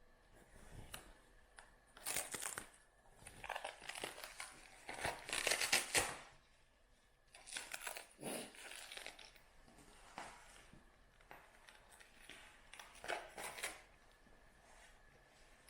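Several separate bursts of rustling and crinkling, the longest about two seconds, with quiet between them.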